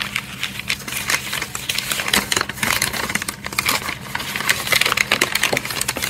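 Packaging being handled: crinkling and crackling wrapping with many quick, irregular small clicks and taps, as a heavy rock specimen is dug out of its wrapping.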